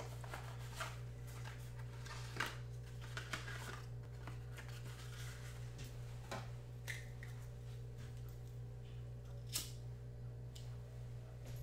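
Faint rustling and scattered clicks of a small object being handled in the hands, with sharper clicks about two and a half seconds in and again about nine and a half seconds in, over a steady low hum.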